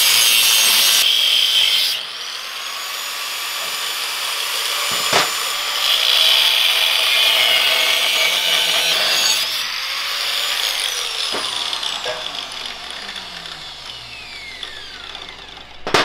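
Angle grinder with a cut-off wheel running and cutting through steel tubing on a mini bike frame: a continuous high whine and grinding hiss, loudest in the first two seconds and again in the middle, with the whine falling in pitch in the last few seconds.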